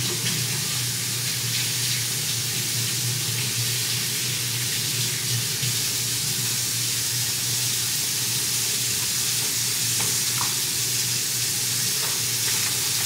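Kitchen tap running steadily, a constant hiss of water as snow crab legs are rinsed under it.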